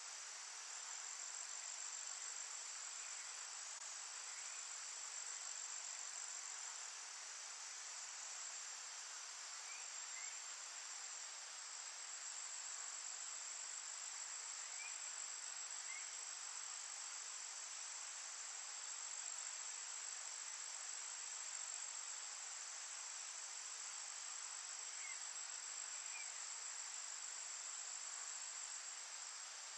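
Steady chorus of insects in the woods, a continuous high-pitched trilling drone, with faint short chirps coming in pairs every few seconds.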